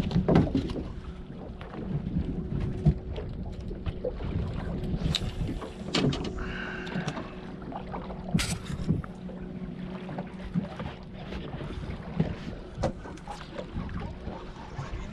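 Wind buffeting the microphone over a low rumble of water and a small boat, with scattered knocks and clicks from handling fishing gear. A faint steady low hum runs through the middle.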